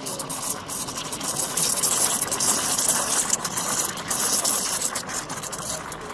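Espresso machine at work: a steady hiss with scattered clicks and rattles.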